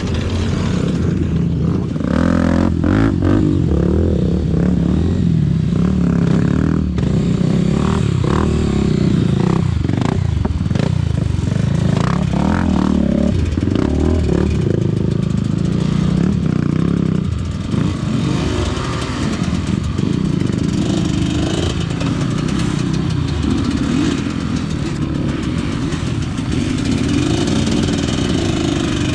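Trail motorcycle engine running under riding load, its pitch rising and falling with the throttle, with scattered clattering knocks from the bike over rough ground.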